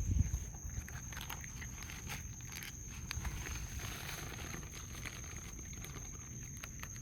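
Two raccoons eating pecans and cheese puffs at close range: a run of short crunches, clicks and rustles as the nuts are chewed and the food is pushed about, with a low thump right at the start.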